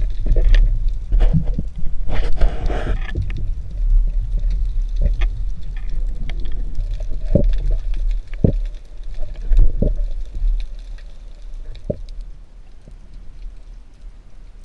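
Underwater sound picked up by a spearfisher's action-camera housing: a steady low rumble, a brief rush of bubbling hiss about two seconds in, and scattered sharp clicks and knocks, growing quieter near the end.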